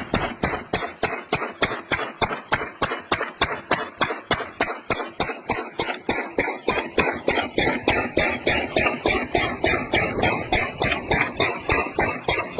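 Washing machine banging in a fast, steady rhythm of about four to five knocks a second, typical of a drum spinning off-balance.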